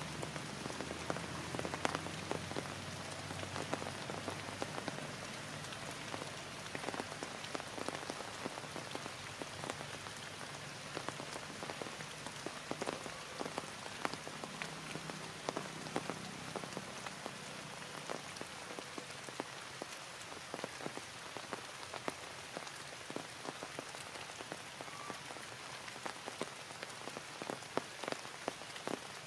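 Heavy rain falling steadily, with many close drops landing as sharp individual ticks.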